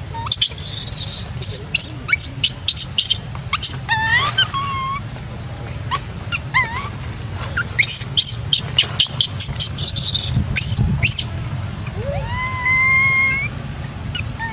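Infant long-tailed macaque crying: a fast string of short, high squeals and rising whimpers for most of the stretch, then a longer rising wail near the end. These are weaning cries, a young macaque begging for milk that its mother no longer has.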